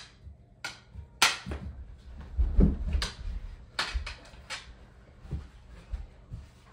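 Mini hockey sticks clacking against each other and the puck in a string of sharp clacks, with dull thumps of knees and bodies on a carpeted floor, the loudest thump about two and a half seconds in.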